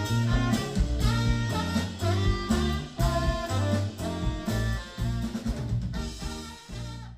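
A live band of saxophone, electric guitar, electric bass and drum kit playing an instrumental jazz-funk tune with a steady drum beat; the sound drops away near the end.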